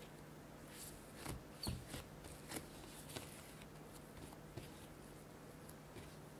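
Hands pressing a ball of yeast doughnut dough flat on a bamboo cutting board and folding its edges together: soft taps and rustles of dough and fingers on the wood, the loudest a dull thump about a second and a half in.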